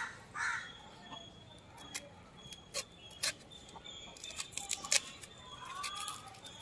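Small kitchen knife scraping and cutting the seed core out of a halved chayote, making scattered light clicks and scrapes. Birds call in the background, a few times near the start and once near the end.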